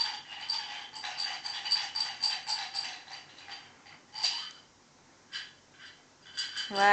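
A small shiny metal object shaken in the hand, rattling with a metallic ring at about four shakes a second for the first three seconds or so, then one more shake and a few scattered clicks. A child's voice starts right at the end.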